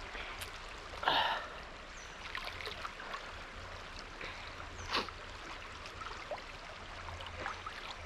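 Running water, steady, with two short louder sounds about a second in and about five seconds in.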